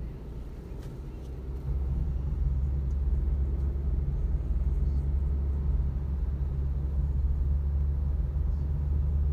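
Steady low rumble of a car's engine and tyres heard from inside the cabin while driving slowly in jammed traffic. It gets louder about two seconds in and then holds steady.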